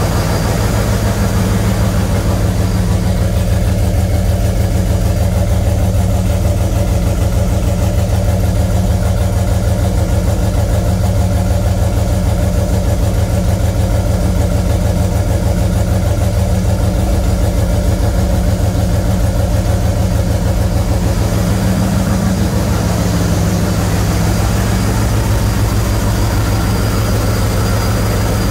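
ProCharger-supercharged 408 stroker V8 idling steadily at about 1,700 rpm with a deep, even, low-pitched note.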